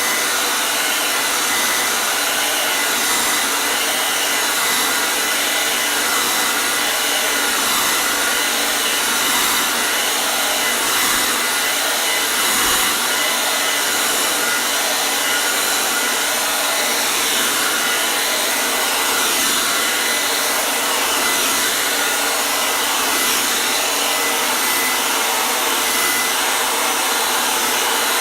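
Hair dryer running steadily, a constant hiss of blown air with a faint motor whine and no change in speed, used as white noise to soothe a baby.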